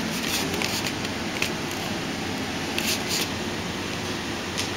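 Pomeranian puppies' claws scratching and clicking on a tile floor as they scuffle over a rope toy: a few short, scattered scratches over a steady background hum.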